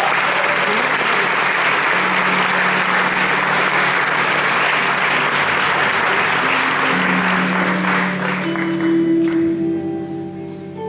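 Concert audience applauding, with a steady low tone held from the stage underneath. The applause dies away near the end as sustained electric guitar notes start to ring out.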